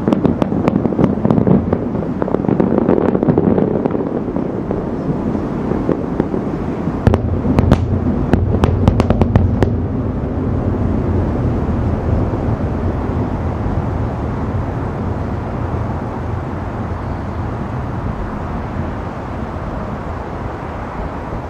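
Aerial firework shells bursting about 2.5 km away: a dense run of bangs and crackles at the start, a second cluster of sharp cracks about seven seconds in, then a low rumble that slowly fades.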